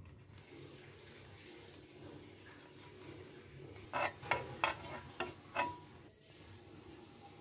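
Butter with spices frying in a nonstick pan, a faint steady sizzle while a steel spoon stirs it. A little past halfway, a quick run of about five sharp scrapes and taps of the spoon against the pan.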